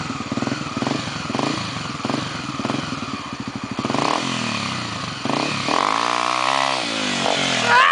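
Honda XR250 Tornado's single-cylinder four-stroke engine running at low speed with repeated short throttle blips, then revved up and back down near the end.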